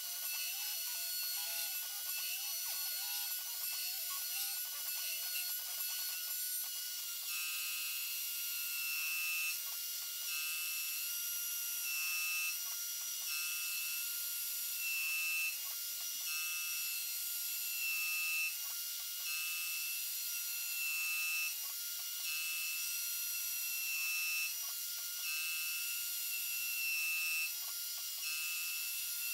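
CNC mill's spindle and end mill cutting a metal plate: a steady high whine with cutting noise. From about seven seconds in, a tone cuts in and out about every one and a half seconds as the tool works back and forth. In the first seven seconds a lower tone rises and falls in pitch.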